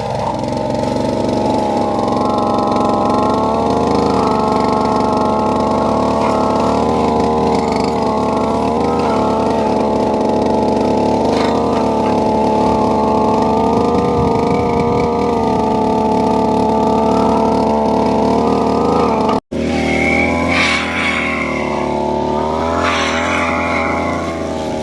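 Brush cutter engine running steadily at speed, its pitch wavering a little as it is worked. The sound cuts out for an instant about three-quarters of the way through, then carries on.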